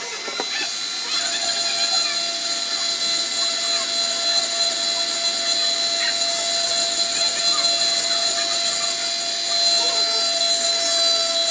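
Electric rotary engraving pen running at high speed, a steady whine with scratchy grinding as its pointed bit etches into a glass bottle. It comes back up to full speed about a second in.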